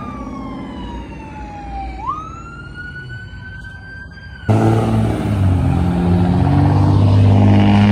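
A siren wailing, falling slowly in pitch, then sweeping back up. About halfway through it cuts abruptly to a much louder engine revving hard under acceleration, its pitch slowly climbing.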